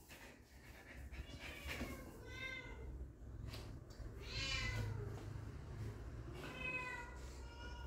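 Puppies whining and whimpering: several short, high-pitched cries that rise and fall, the longest and loudest about four and a half seconds in.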